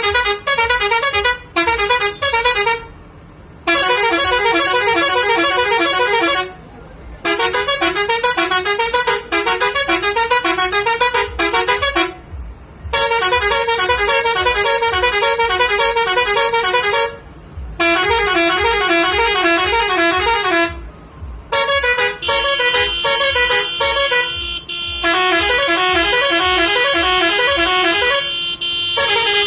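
Roots six-pipe musical horn on a Tata Signa truck playing a fast warbling tune in repeated phrases, with short pauses between them. About two-thirds of the way in, a steady held note joins under the tune.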